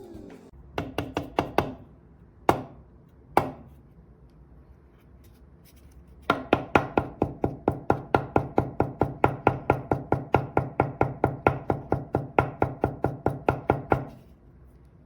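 Sharp, evenly spaced knocks: a short run, two single knocks, then a long steady run of about five knocks a second that stops suddenly.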